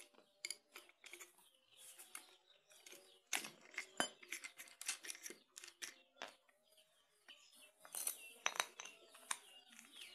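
Faint, scattered clicks and clinks of an angle grinder being handled by hand while its cutting disc is swapped for a flap disc: disc, flange nut and tool body knocking lightly together. The grinder is not running.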